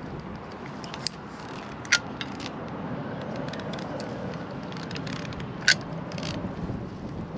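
Small handling noises during hands-on work: three sharp clicks, about a second in, at two seconds and near the end, over a steady background hum.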